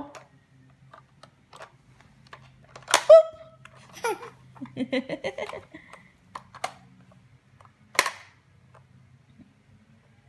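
Plastic lids of a toddler's pop-up character toy snapping shut with sharp clicks, one every second or two, the loudest about three seconds in. A toddler giggles briefly in the middle.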